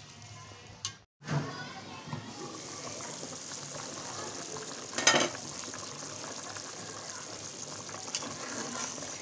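Beef-and-potato stew liquid boiling hard in an aluminium pot, a steady hiss of bubbles. It breaks off for a moment about a second in, and there is a short clatter about five seconds in.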